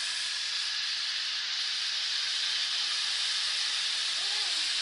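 Chicken pieces deep-frying in hot oil, with a steady, even sizzle.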